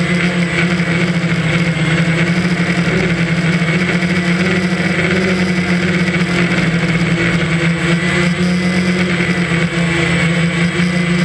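DJI Phantom quadcopter's four electric motors and propellers running in flight, heard from the drone itself: a loud, even buzz with several held tones.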